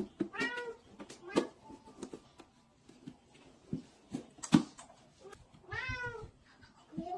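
A cat meowing twice: once right at the start and again about six seconds in. Scattered knocks fall between the meows, the loudest a sharp tap about four and a half seconds in.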